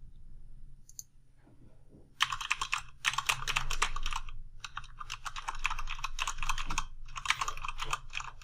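Typing on a Corsair K95 RGB Platinum mechanical keyboard with Cherry MX Speed switches: rapid runs of key clicks starting about two seconds in, with short pauses. It is not super quiet but quiet enough for an office.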